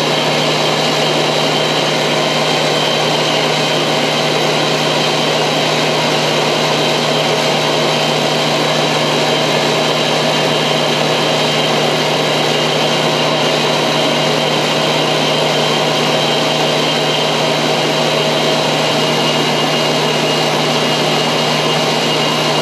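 Loud, steady machine noise of a dehumidifier's fan and compressor: an even rushing sound with a low hum and a few fixed whining tones, unchanging throughout. It covers any guitar playing, and the player himself suspects his dehumidifier kicked in.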